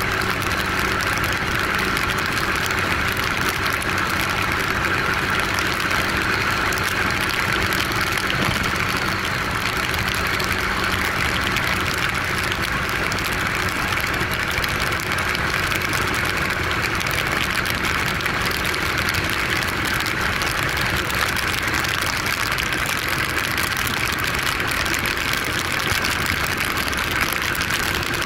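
150 cc Yamaha motorcycle engine running steadily at cruising revs, with wind and tyre noise on a wet road.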